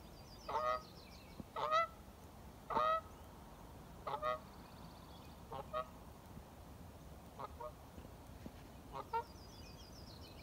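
A goose honking repeatedly, about seven separate honks one to two seconds apart, the first three loudest and the rest fainter.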